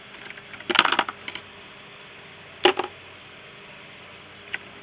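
Small metal sockets clinking against each other as they are handled and set down: a quick cluster of clinks about a second in, a single sharper clink a little later, and a faint one near the end.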